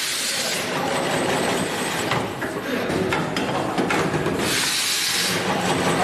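Automatic cable processing machines running on a factory floor, with scattered mechanical clicks and two bursts of hissing, a short one at the start and a longer one about four and a half seconds in.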